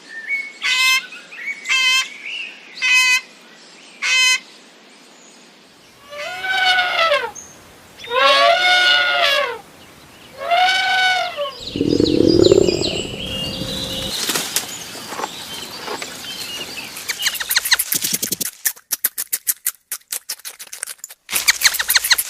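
A series of farm animal calls. It starts with five short high calls, then three long calls that each rise and fall, then a rough low noise and a fast run of flapping or clattering near the end.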